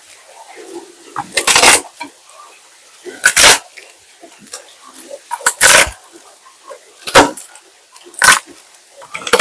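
Kitchen prep noises: a run of short, loud, rough scrapes or squelches, about six of them, coming every one to two seconds as food or utensils are worked by hand.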